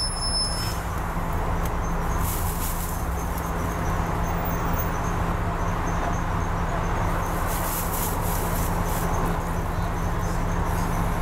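Double-decker bus engine idling with a steady low hum, heard inside the upper deck. A faint high-pitched chirp repeats about twice a second, and brief hisses come twice.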